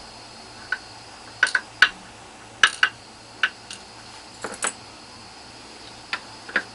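Light, irregular clicks and taps of small metal padlock parts (pins, plug and tools) being handled during disassembly, about a dozen in all.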